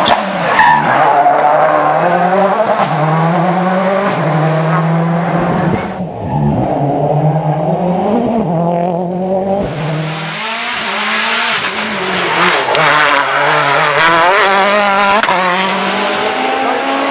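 Rally car engine revving hard on a stage, its pitch climbing and dropping again and again through the gear changes. The sound turns duller for a few seconds about six seconds in, then comes back louder and brighter.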